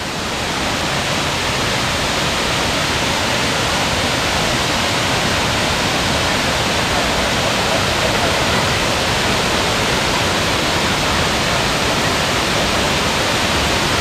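A tall, multi-tiered waterfall pouring down a rock face: a steady, unbroken rush of falling water.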